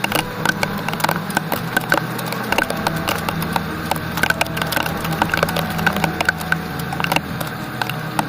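Storm rain, with many irregular sharp taps of drops striking a nearby surface over a steady hiss and a low steady hum.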